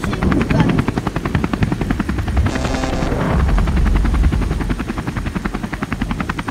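Helicopter sound effect: a rapid, steady rotor chop with engine rumble beneath, swelling into a brief louder rush about halfway through.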